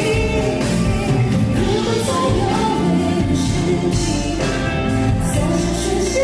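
Live pop ballad performance: a woman singing over band accompaniment.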